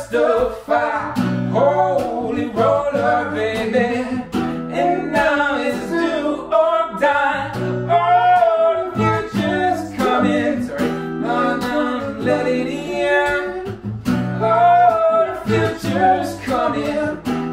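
A man singing a song to a strummed acoustic guitar, with a second guitar, an electric, playing along.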